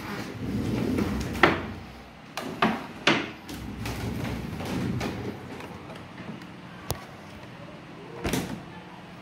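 Low rumbling handling noise with a series of sharp knocks and clunks, the loudest about one and a half seconds in and two more around three seconds, then a few lighter knocks near the end.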